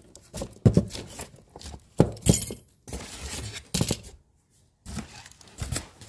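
Small loose metal embroidery-machine parts clink and knock as they are picked up and set down, about half a dozen sharp clinks with a brief pause in the middle.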